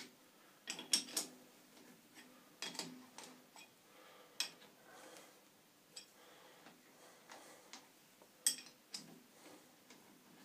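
Hex key working the screws that hold a Schaublin SV52 milling head: irregular sharp metal clicks and taps with quiet gaps between them, the loudest about eight and a half seconds in.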